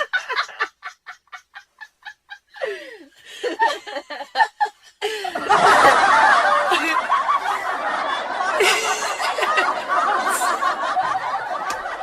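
People laughing: a quick run of short staccato laughs, then from about five seconds in a louder, continuous stretch of laughter.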